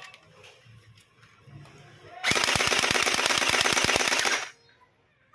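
Toy gel blaster built like an M82A1 Barrett rifle, firing one full-auto burst of rapid shots for about two seconds after a few faint clicks, then cutting off suddenly.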